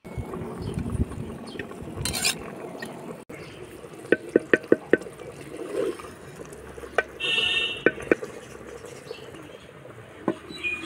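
A metal slotted spoon stirring chicken and onions in an earthenware pot, with a run of sharp clinks and a longer scrape against the clay. Near the end a clay lid clinks onto the pot.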